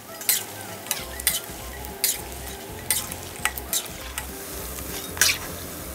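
Chicken skin deep-frying in hot oil with a steady sizzle, while a metal spatula stirs it in the pan and knocks and scrapes against the pan about seven times. The skins are at the light-golden stage and are being stirred constantly so they cook and crisp evenly.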